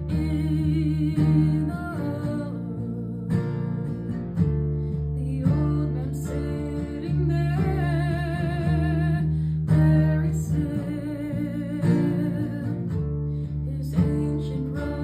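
A woman singing a slow song with vibrato over a sustained instrumental accompaniment.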